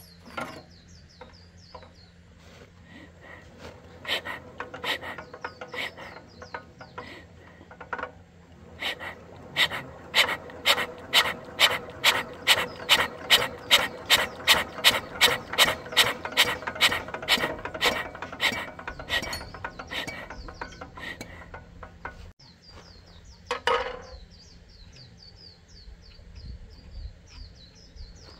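Socket ratchet wrench clicking as it is worked back and forth on an old engine's bolts: a few scattered clicks, then a fast, even run of about two and a half clicks a second that thins out and stops. A single louder knock follows, with faint bird chirps at the start and end.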